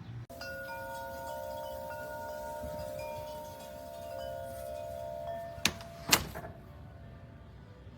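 Several chime tones ringing together and held for about five seconds, then two sharp clicks about a second apart.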